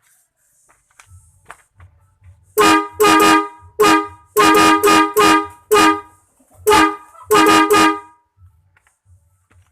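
Horn for a Hino RK bus sounding a string of about ten short, loud blasts over some five seconds, in an uneven, tune-like rhythm.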